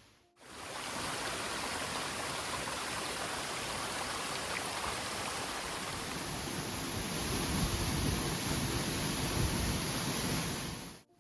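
Waterfall water rushing steadily, cutting in abruptly at the start and cutting off abruptly near the end.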